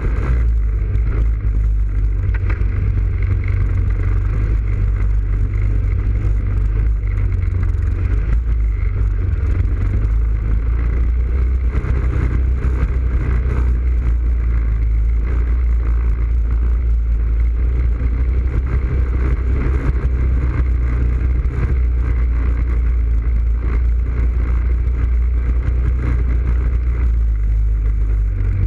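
ATV engine running steadily while the quad is ridden along, a loud, unbroken low drone.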